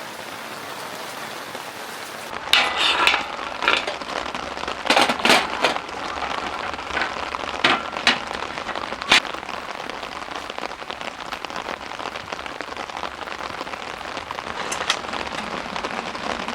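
Heavy rain falling steadily on tent fabric. The sound changes abruptly about two seconds in, and a run of loud, sharp taps follows over the next several seconds before the rain settles back to a steady hiss.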